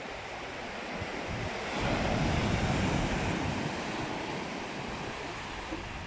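Sea waves breaking and washing up onto a sandy beach, swelling about two seconds in and then easing.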